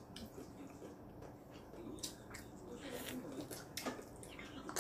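Eating sounds of black bean noodles eaten with chopsticks: a scatter of short, sharp clicks and wet slurps, more of them in the second half.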